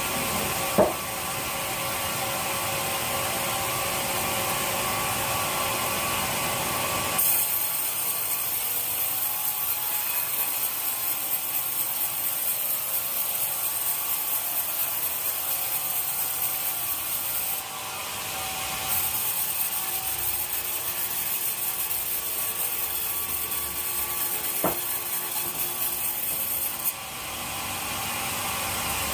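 Sawmill saw cutting timber: machinery hums steadily, then a harsh hiss of the blade in the wood starts about seven seconds in, stops briefly past the middle, and resumes until near the end. Sharp knocks sound once near the start and once late on.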